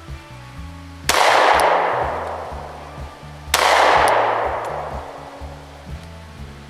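Two shots from a Glock 43X 9mm pistol, about two and a half seconds apart, each trailing off in a long echo. Background music with a low bass line runs underneath.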